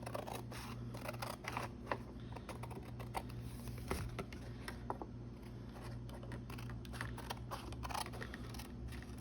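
Craft scissors snipping around a freshly glued craft piece in a run of short, irregular cuts.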